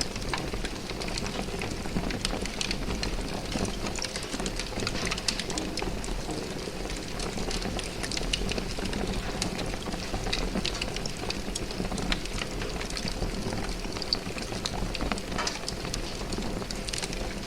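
Large fire burning steadily: a low rumble of flames with dense, irregular crackling and popping throughout.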